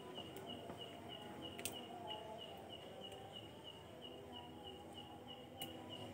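Faint insect chirping: short high chirps at one pitch, evenly about three a second, over low room noise, with a few soft clicks.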